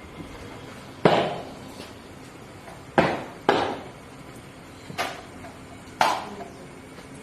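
Five sharp, loud smacks of rifle-drill movements, spaced a second or two apart, with a pair in quick succession near the middle.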